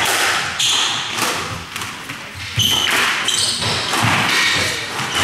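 Squash rally: the ball hit by rackets and smacking off the court walls in sharp, irregular impacts, with shoes squeaking briefly on the wooden floor.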